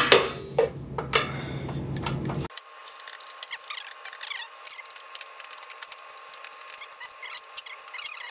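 A steel socket ratchet and extension clinking against the running-board bracket bolts a few times, then the ratchet clicking in quick irregular runs as the bolts are run in by hand.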